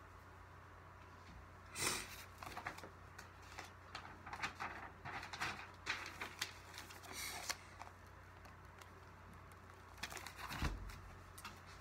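Sheets of printed paper rustling and crackling as they are handled and leafed through, in irregular bursts from about two seconds in, pausing, then again near the end with a thump.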